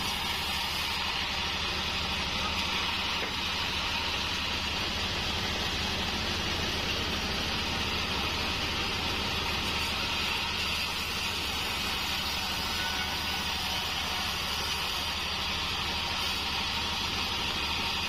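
Band sawmill running steadily while sawing wadang wood: a low hum under a bright, even hiss.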